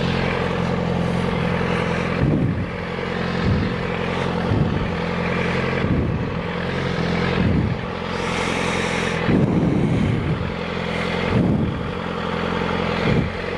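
A person's heavy breathing close to the microphone, in and out roughly every second, sounding like Darth Vader, over a steady low motor hum.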